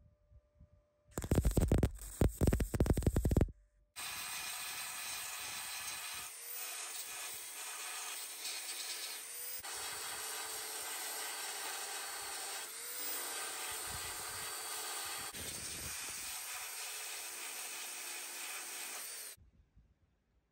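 MIG welder crackling in short bursts for about two seconds as a repair patch is welded into a steel tailgate panel. Then a belt file sander starts and runs steadily for about fifteen seconds, grinding down the welds, and cuts off near the end.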